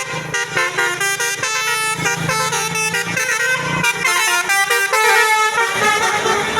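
A tour bus's Basuri 'telolet' multi-tone horn playing a fast tune of short notes that jump up and down in pitch.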